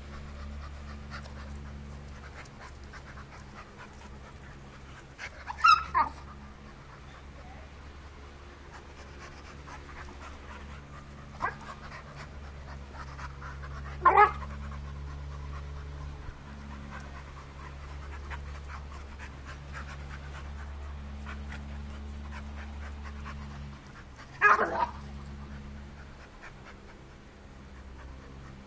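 Two pit bull-type dogs panting hard while they play-fight, with three short loud sounds about 6, 14 and 24 seconds in, over a steady low hum.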